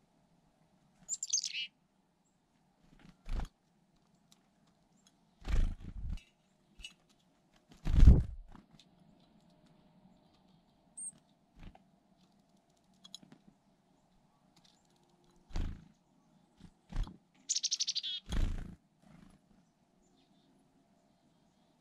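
Black-capped chickadee calls: a high falling note about a second in and a harsh buzzy call near the end. Between them come several sharp knocks and taps, the loudest about eight seconds in.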